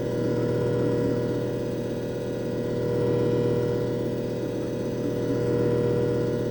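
JFJ Easy Pro disc repair machine running with a steady motor hum, its loudness swelling and easing about every two and a half seconds.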